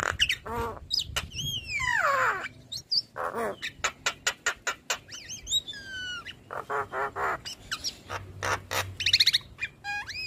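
Javan myna (jalak kebo) singing a long, varied song: sharp clicks and rapid chatters mixed with quick repeated notes and whistles that glide downward in pitch, one falling run about two seconds in and another near six seconds.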